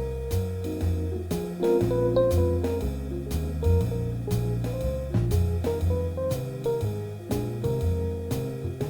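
Background music: guitar over bass and a drum kit keeping a steady beat.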